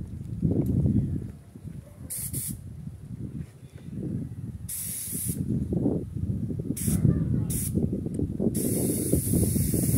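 Compressed-air spray gun hissing in several short bursts, then steadily from about eight seconds in, spraying sanding sealer onto plywood cabinets as a first coat. A low rumble runs underneath throughout.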